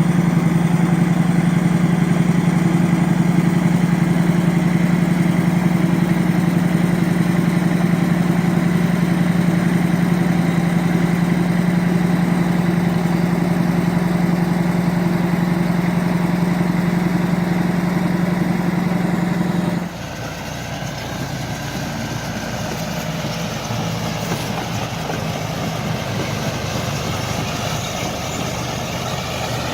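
Heavy bulldozer diesel engine running steadily with a strong low hum. About twenty seconds in, the sound cuts abruptly to another machine's engine running, with less low hum and more high-pitched noise.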